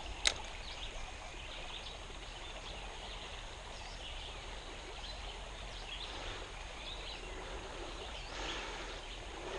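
Steady outdoor ambience of a shallow creek running over stones, with faint bird chirps scattered through it. One sharp click comes just after the start.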